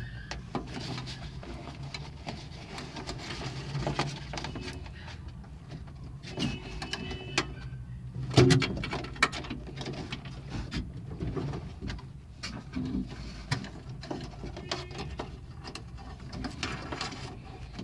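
Rustling and scattered clicks from handling an electrical wire as it is fed behind a car's dashboard trim, with a sharper knock about eight and a half seconds in. Birds call in the background.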